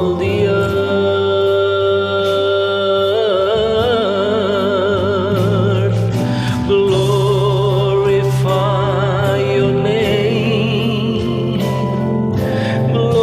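A voice singing a slow worship song over a steady backing track, holding long notes with a wide vibrato.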